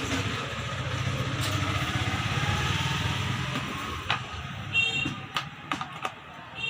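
A steady low mechanical rumble lasts about four seconds and then fades. It is followed by a string of sharp clicks and knocks, with a couple of brief squeaks, as the back casing of a rechargeable fan is handled and taken off.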